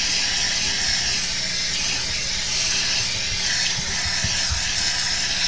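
Handheld steamer running continuously with its button taped on. A steady hiss of steam comes out of the brush attachment over the buzz of the unit's pump, as it is worked over a golf club's rubber grip. A few soft knocks come in the second half.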